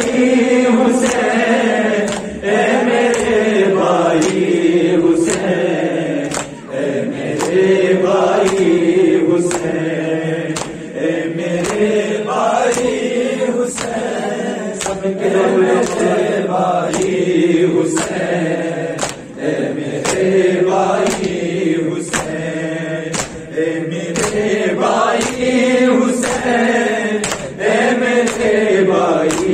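Urdu noha chanted through a microphone by a male reciter, with a group of men singing along, over a steady beat of open-hand chest-beating (matam) slaps.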